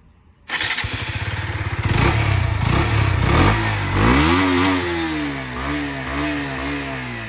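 KTM RC 125's single-cylinder four-stroke engine catching about half a second in and running through a newly fitted stock Husqvarna 250 silencer, then revved: one rising rev a little before the middle, followed by about four short throttle blips. The exhaust note is soft.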